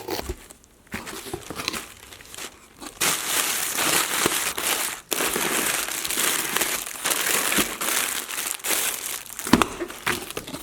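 Packaging crinkling and rustling as a supplier box of squishy toys is opened and unpacked by hand. It is patchy at first and gets busier and louder about three seconds in, with a few sharp crackles.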